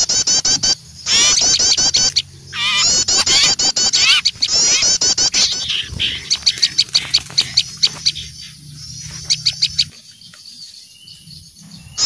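Small songbirds giving alarm calls at an owl: a dense, overlapping chorus of fast, repeated scolding chips and trills. It thins out and drops away near the end.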